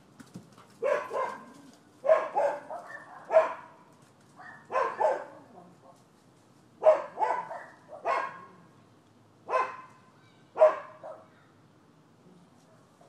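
Dogs barking in short groups of one to three barks, separated by pauses of about a second, with the barking stopping about eleven seconds in.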